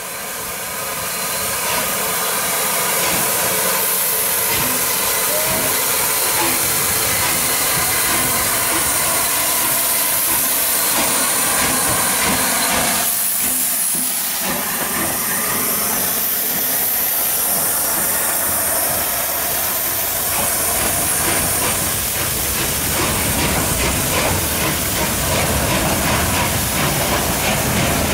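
Rebuilt SR Merchant Navy class three-cylinder Pacific steam locomotive, 35006, passing slowly at close range. Steam hisses loudly around its cylinders and valve gear, growing louder over the first couple of seconds as it comes near. The train's running becomes a faint rhythmic beat in the second half.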